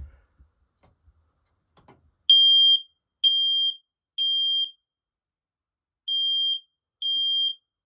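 First Alert 9120B hardwired smoke alarm sounding during its test: loud, high-pitched beeps of about half a second each, three about a second apart, a pause, then the next three begin. This is the three-beep evacuation pattern, a sign that the newly powered alarm's horn is working.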